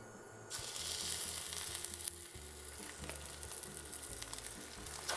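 Sesame-crusted ahi tuna steak sizzling in hot oil in a stainless steel skillet. The sizzle starts suddenly about half a second in, as the steak goes into the pan, then holds steady.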